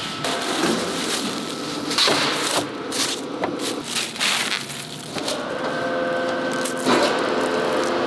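Clear plastic film crinkling and rustling as it is peeled and smoothed over a sheet of raw green silicone rubber, with irregular crackles. A steady machine hum runs underneath.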